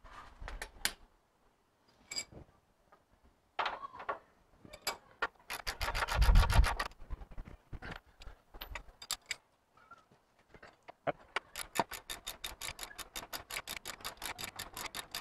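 Hand ratchet clicking as the U-bolt nuts on a front leaf spring are run down. Scattered clicks and knocks come first, then a burst of rapid clicks with a low rumble about six seconds in, then a long, fast, even run of ratchet clicks in the last few seconds.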